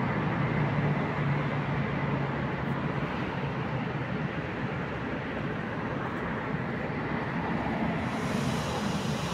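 Steady hum and noise of a ChS7 electric locomotive standing at the head of a passenger train. A low hum fades about four seconds in, and a higher hiss comes in near the end.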